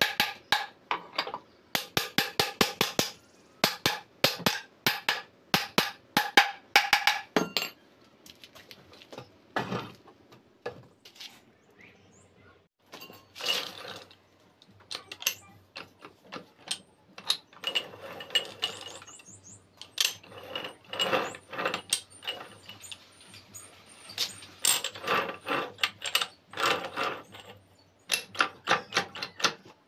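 Metal parts of a Tata 407 GB-20 gearbox being worked on: rapid bursts of ringing metal taps on the casing and bearing through the first seven seconds or so, then gears on the main shaft clinking and rattling on and off as they are shifted by hand inside the open casing.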